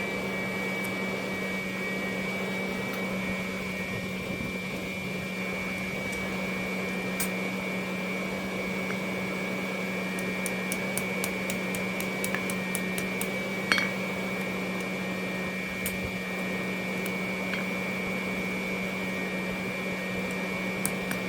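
Steady hum of a coal forge's electric blower. A few light metallic clicks come about halfway through.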